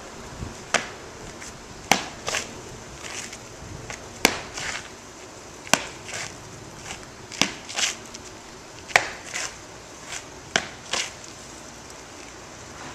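Martial artist performing a Baji form: about seven sharp cracks from strikes, roughly one every second and a half, each followed by a short scuffing swish of feet and clothing.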